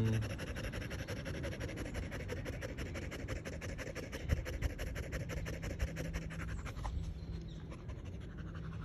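Dog panting fast and steadily, several breaths a second, catching its breath after hard running in the heat: the dog is exhausted.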